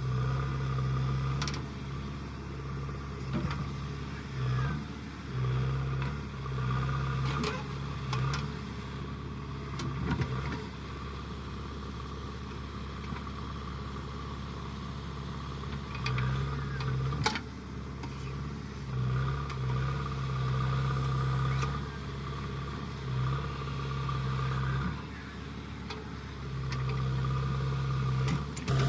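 JCB 3DX backhoe loader's diesel engine running, growing louder in repeated stretches of a second or more as it takes load while the hydraulics work, with a few sharp knocks.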